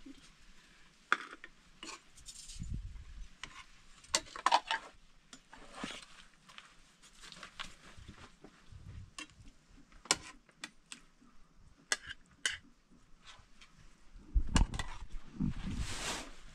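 A metal spoon clinking and scraping against a pan and dishes while food is served, in scattered sharp clicks. A few dull thumps near the end.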